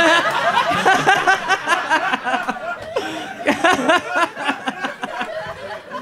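Stand-up audience laughing at a punchline. A dense burst of many people laughing at once thins out after a couple of seconds into scattered laughs and chuckles.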